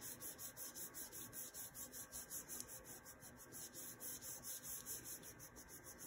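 Fingertips rubbing back and forth over a sheet of paper laid on polymer clay, burnishing it flat: a faint, quick, steady run of papery rubbing strokes, several a second.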